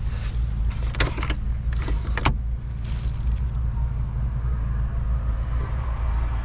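Honda Freed's 1.5-litre L15B inline-four petrol engine idling, a steady low hum heard inside the cabin. A few sharp clicks come between about one and two and a half seconds in.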